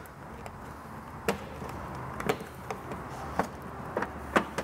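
Sharp clicks and taps, four main ones about a second apart, from hands working loose the plastic floorboard and legshield trim of a Vespa GTS scooter.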